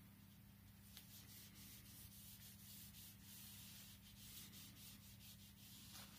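Faint scrubbing strokes of a small hand-held applicator rubbed quickly up and down the base of a fishscale (waxless) cross-country ski, working its glide zone.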